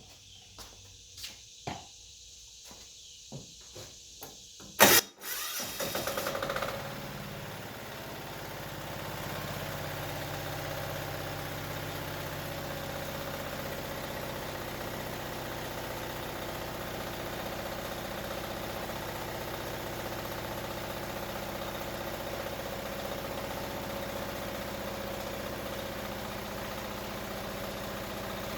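A few light clicks, then a sharp click as the Wen D6000 diesel generator's electric starter engages and the engine fires about five seconds in. After a few uneven seconds it settles into a steady run.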